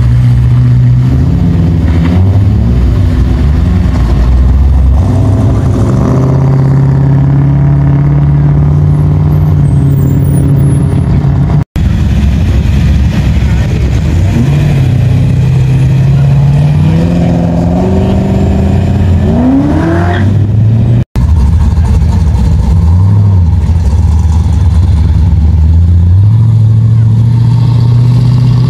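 Classic muscle car engines running with a low, steady note and revving as the cars pull away one after another, the pitch climbing with each rev; a quick, sharp rev comes about twenty seconds in and another right at the end. The sound cuts out for an instant twice.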